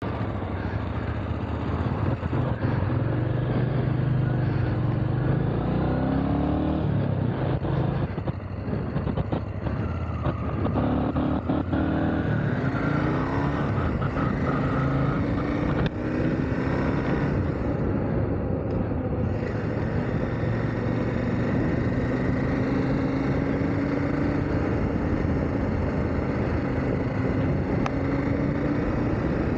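Motorcycle engine running under way, its pitch rising several times as it accelerates through the gears, over a steady rush of road and wind noise.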